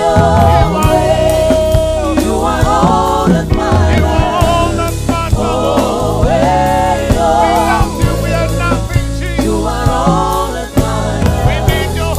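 Gospel song: voices singing a melody together over bass and a drum beat.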